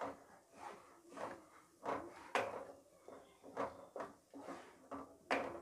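Wooden spatula scraping and knocking against a kadai while stirring thick masala paste, in irregular strokes about two a second.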